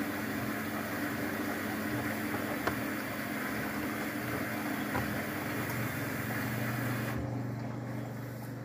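Luxor WM 1042 washing machine running a Cotton 90°C drum-clean cycle: a steady low hum under a rushing hiss. The hiss cuts off suddenly about seven seconds in, leaving the hum, with a couple of faint clicks along the way.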